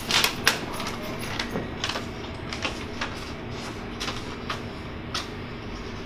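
Stiff paper crackling and rustling in the hands as it is handled and fitted, with a cluster of sharp crinkles in the first half second and scattered ones after, over a steady low hum of room tone.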